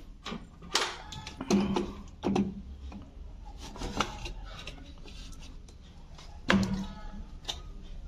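Irregular clicks and knocks from hands handling a front-loading washing machine's plastic-housed control board and its wiring, with the loudest knock about six and a half seconds in.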